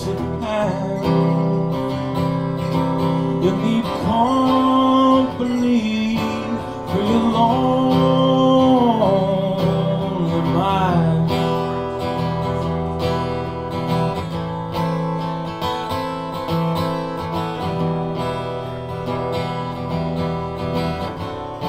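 Acoustic guitar strummed through an instrumental break in a live song. A melody of long held notes sits over it for the first half or so, and the guitar carries on alone after about eleven seconds.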